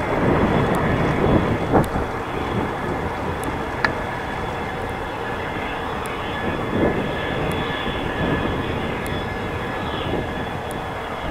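Steady rumble of a distant jet aircraft engine with a faint constant whine, mixed with wind and road noise from riding a bicycle.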